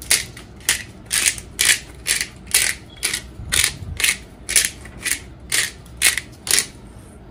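Pepper grinder twisted by hand, grinding black pepper in a steady rhythm of about two gritty crunches a second that stops near the end.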